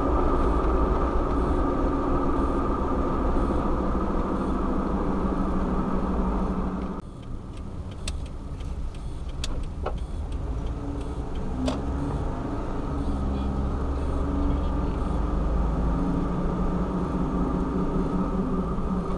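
Kei van on the move: steady engine and road drone that drops away about seven seconds in as the van eases off, with a few light clicks, then the engine pulls again and the drone builds back.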